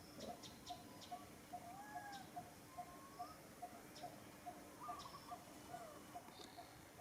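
Faint bird calls: one short note repeated steadily about four times a second, with scattered high chirps and a few brief sliding calls.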